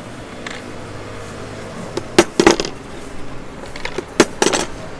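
Sharp metal-on-metal clinks and taps in two quick clusters of several strikes, one about two seconds in and one near the end, each with a short ring.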